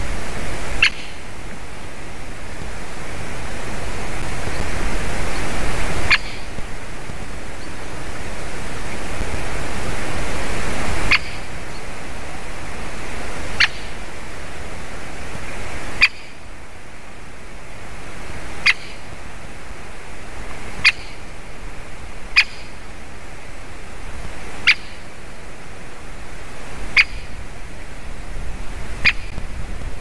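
Great spotted woodpecker giving single short, sharp calls, about one every two to three seconds, over a steady hiss.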